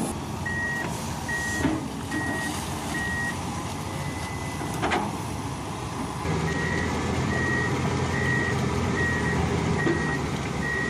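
A heavy machine's reversing alarm beeps about twice a second over the running diesel engine. The beeping stops for a few seconds, with one sharp knock, then starts again from about halfway as the engine gets louder.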